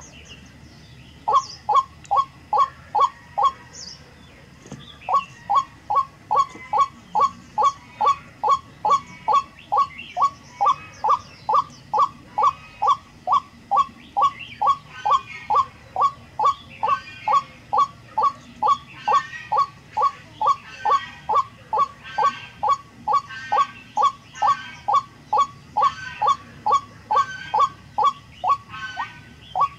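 White-breasted waterhen calling: a long, monotonous series of short downward-sliding notes, about two a second, with a pause of about two seconds near the start. Fainter chirping of small birds behind it.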